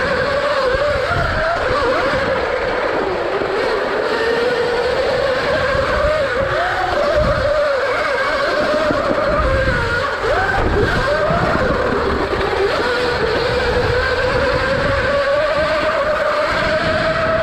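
Electric dirt bike's motor whining while ridden over dirt jumps, its pitch rising and falling with the throttle and speed, over a rough low rumble.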